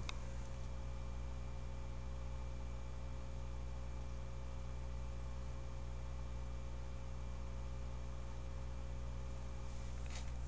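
Steady electrical mains hum with a faint hiss underneath: the background noise of the recording line. Near the end there are a few faint clicks from a computer mouse.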